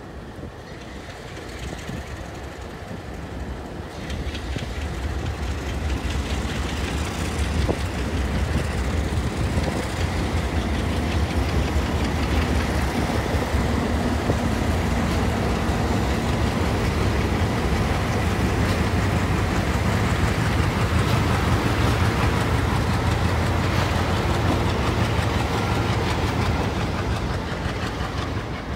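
Several Delaware-Lackawanna diesel locomotives running light as they roll slowly past, their engines giving a steady low drone. The sound grows over the first few seconds, holds loud through the middle and eases off near the end.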